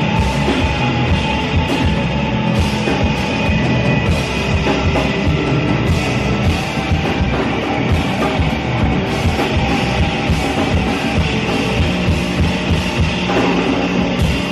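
Live band playing loud rock-style music: drum kit, electric guitars and keyboards.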